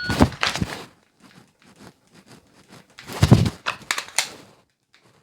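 Dry-fire run with a Glock 45 pistol: a shot timer's electronic start beep, then the clatter of the draw from the holster, a string of light sharp clicks, and a louder clattering burst about three seconds in from a fumbled reload, the magazine striking the front of the magwell instead of seating cleanly.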